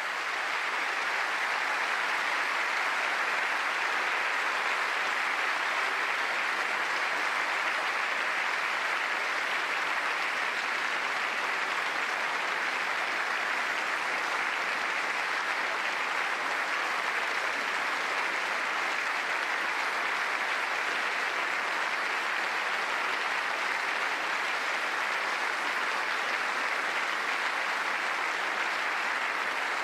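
A large audience applauding, dense clapping that holds steady throughout.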